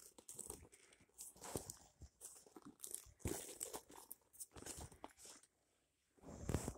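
Rustling and crinkling handling noise from a backpack purse being turned and moved about close to the microphone: an irregular string of short scrapes and knocks that drops away shortly before a last burst near the end.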